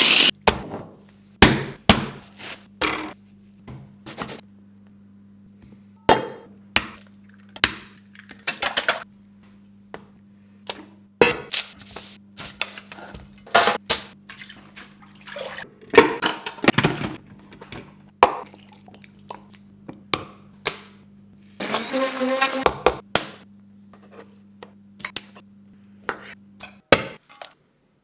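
Kitchen food-preparation sounds: a string of separate sharp clinks, knocks and taps of utensils and dishes, with a longer rough, crackly stretch about three-quarters of the way through. A steady low hum runs underneath and stops shortly before the end.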